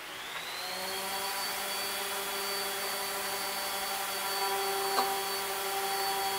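CNC router spindle spinning up: a high whine rises in pitch over about the first second, then runs steady at speed with a rush of air. A light knock comes about five seconds in.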